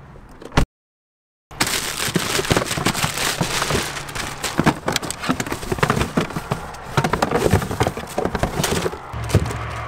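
Dense crackling rustle of tissue paper and a cardboard shoe box being handled, full of small sharp clicks. It comes after a loud click and about a second of dead silence.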